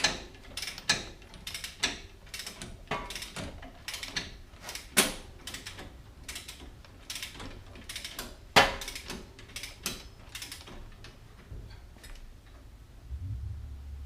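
Hand ratchet wrench clicking in short strokes, with sharp metallic clicks and knocks a few times a second while a bolt is worked. A low steady hum starts near the end.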